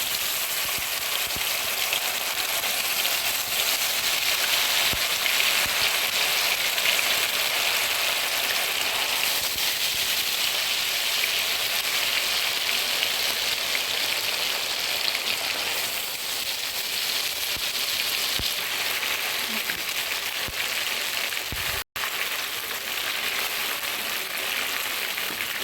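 Marinated chicken pieces deep-frying in hot oil: a steady sizzle, broken once near the end by a split-second gap.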